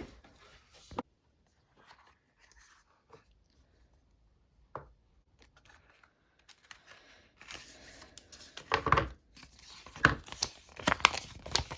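Apple Pencil packaging being handled and opened: paper and cardboard rustling, tearing and crinkling. A few scattered taps come first, and it turns into dense rustling about halfway through.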